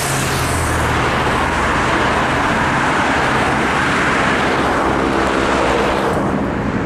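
A stream of race convoy cars driving past one after another, close by, with engine and tyre noise; the noise eases near the end as the last car goes by.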